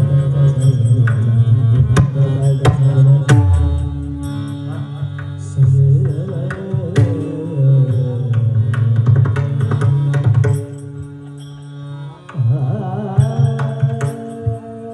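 Marathi abhang devotional singing accompanied by pakhawaj drum strokes. The music dips quieter for a couple of seconds past the middle, then the voice and drumming rise again.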